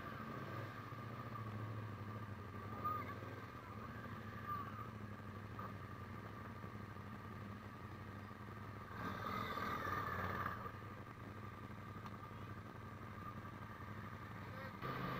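Faint motorcycle engine noise, swelling briefly about nine seconds in.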